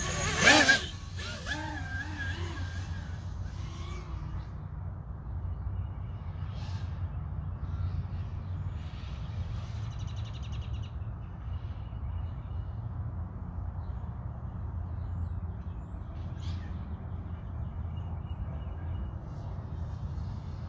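Steady low outdoor rumble, like wind on the microphone, with a loud harsh call about half a second in and faint higher chirps scattered later.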